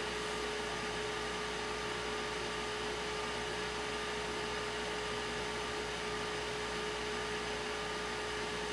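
Steady machine hum: one constant tone over an even hiss, unchanging throughout.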